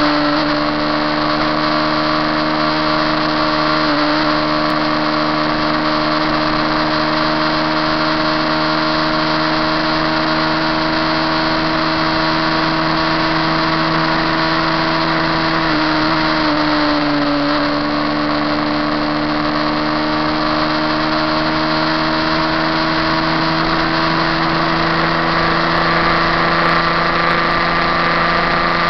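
KTM RC390's single-cylinder engine held at high revs near top speed, its note slowly climbing in pitch with two brief dips, under heavy wind rush.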